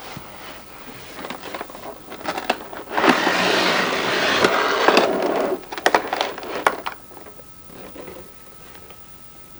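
Toy box packaging being handled and opened: scattered clicks and taps, then a loud rough scraping rustle for about two and a half seconds, and a quick run of sharp clicks after it.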